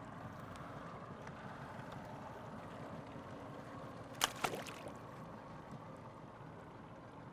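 A fishing rig's plastic paddle flasher tossed over the side hits the river about four seconds in: two quick splashing slaps. Underneath is the steady low running of the trolling boat.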